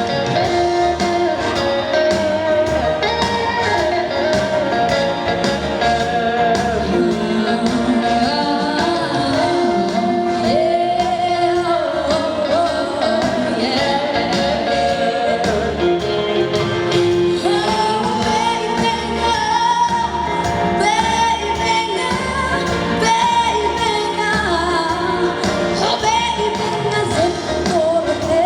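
A female solo singer sings a held, wavering melody over instrumental accompaniment with a steady beat.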